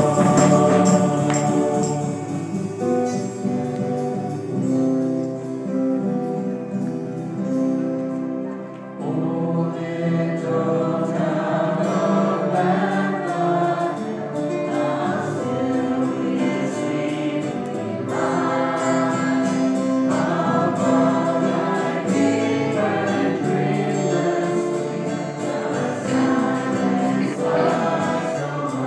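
A small choir singing a gospel-style worship song to acoustic guitar, with held, sustained notes and a brief dip about nine seconds in.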